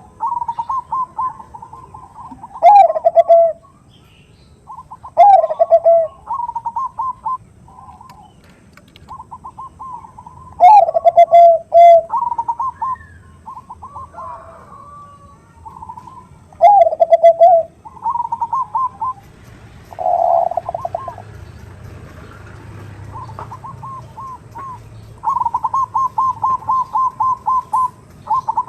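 Bangkok zebra dove (perkutut) cooing in its 'nutut' call, described as a hen calling a male. Rapid trains of short, evenly spaced notes are broken about five times by louder, lower, drawn-out coos.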